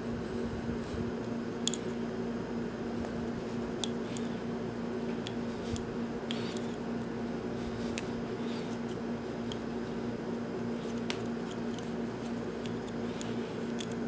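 Scattered small clicks and rustles of fingers untwisting and separating the copper twisted pairs of a Cat5e cable, over a steady low hum.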